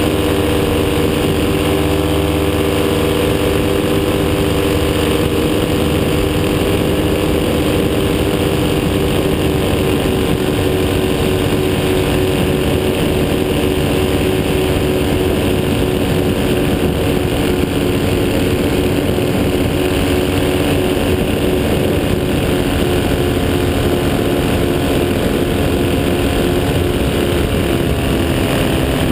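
Paramotor engine and propeller running steadily in flight, heard close up from the pilot's seat as an even hum over a rush of noise.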